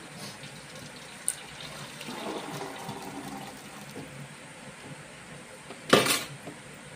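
Cooking water and boiled horse gram poured from a pressure cooker through a perforated steel strainer into a steel pot, with liquid splashing and beans sliding. There is a short, loud knock about six seconds in.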